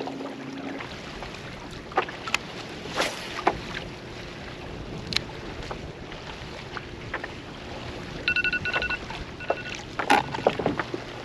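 Short electronic alarm beeping about eight seconds in, a rapid run of high beeps followed soon after by a shorter burst: the lines-out alarm marking the end of fishing time. Around it, wind on the microphone and scattered clicks and knocks of rod, reel and kayak gear being handled.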